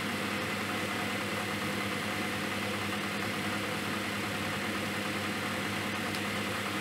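Steady background hum with a constant low drone and a faint hiss, no separate knocks or clicks.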